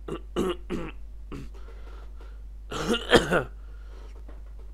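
A man clearing his throat: a few short rasping sounds, then a louder, longer one about three seconds in, over a low steady hum.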